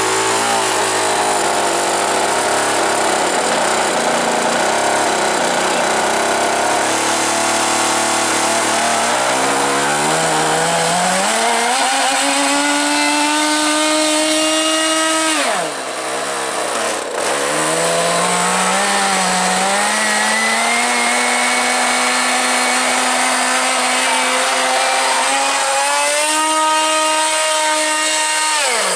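K&B .81 nitro glow engine driving a Dynamax ducted fan in a model jet, running at high power. Its pitch climbs over the first dozen seconds, drops sharply about halfway through, then climbs back and holds before dropping again at the end.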